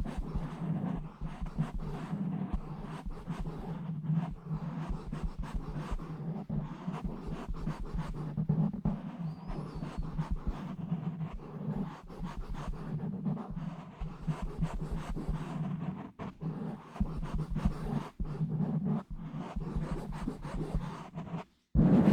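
Rubbing and scratching directly on a bare microphone: a fast, steady run of scratchy strokes that swells and eases every second or two. It breaks off briefly near the end before louder strokes start.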